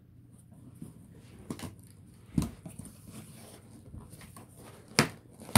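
Cardboard shipping box being opened by hand: flaps rustling and scraping, with a few sharp knocks, the loudest about five seconds in.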